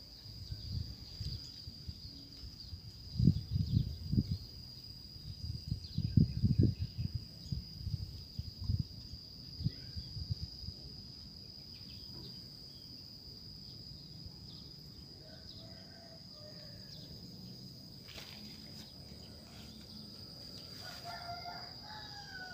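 Rural outdoor ambience: a steady high insect drone throughout, with loud low gusty rumbles on the microphone between about 3 and 11 seconds in, and a brief faint call near the end.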